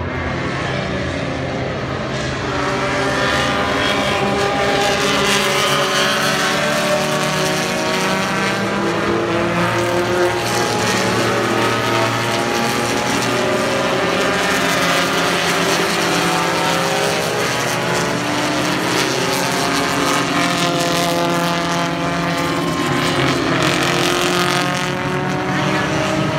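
A pack of vintage race cars running flat out in a group, several engine notes overlapping and rising and falling in pitch as the cars accelerate and shift gears. The sound grows louder about two seconds in as the field closes in.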